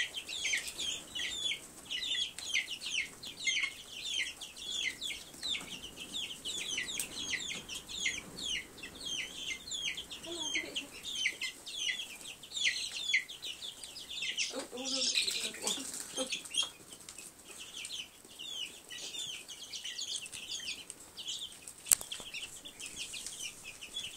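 A brooder full of baby chicks and ducklings peeping nonstop, a dense chorus of short, high, downward-sliding peeps. A single sharp click sounds near the end.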